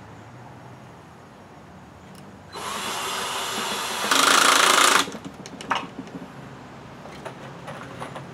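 Cordless drill driving a pocket screw into a 1x12 shelf joint to pull it tight. The motor runs for about two and a half seconds, gets louder for its last second, then stops sharply, and a few light knocks follow.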